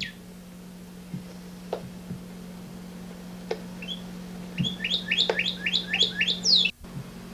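A songbird chirping over a steady low hum. First come a few scattered calls, then about halfway through a run of quick, repeated downward-slurred chirps for a couple of seconds. The sound cuts out for an instant near the end.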